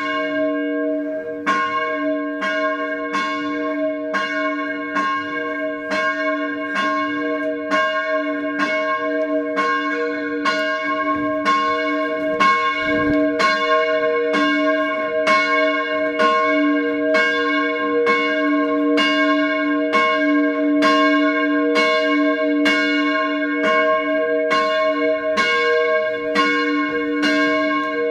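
A church bell rung by hand from a rope pull, its clapper striking in a steady, even rhythm a little over once a second, with the bell's hum ringing on between strokes.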